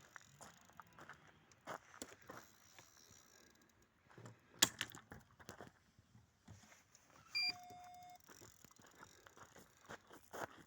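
Scattered light clicks and rattles of gear being handled, with one sharp click about four and a half seconds in, and a single electronic beep lasting under a second about seven and a half seconds in.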